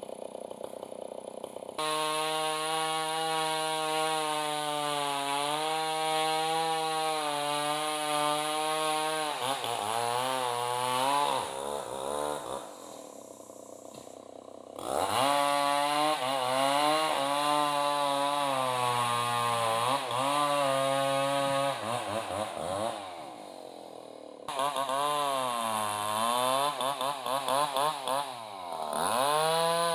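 Two-stroke chainsaw trimming a felled log. It starts at idle, opens up to full throttle about two seconds in and holds a steady pitch for several seconds, then its pitch swings up and down as the chain bites and frees in the wood. It drops back to idle twice for a couple of seconds before revving up again.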